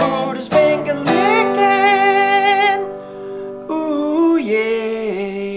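Short outro music: a few strummed acoustic guitar chords, then two long sung notes with a slight waver.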